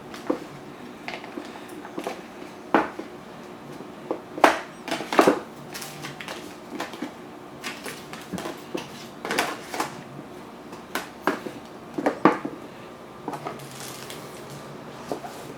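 Irregular clicks, taps and crinkly rustles of phone box packaging and accessories being handled, with a few sharper knocks among them.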